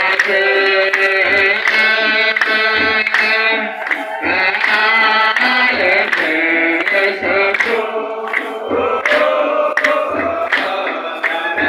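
Ethiopian Orthodox cantors chanting a hymn together in chorus, the many male voices sustaining long notes. A kebero drum beats low and regularly, about once a second, and sharp metallic clicks from sistrums run through it.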